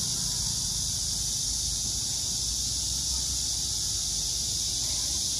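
Steady high-pitched buzzing of cicadas in the street trees, over a low rumble of city traffic.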